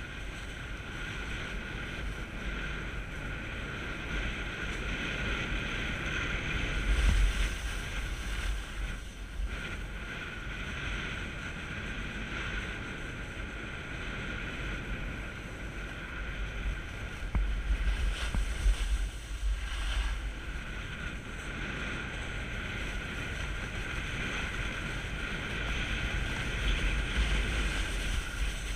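Snowboard sliding down packed snow with a steady rushing scrape, and wind buffeting the camera microphone in several louder low gusts.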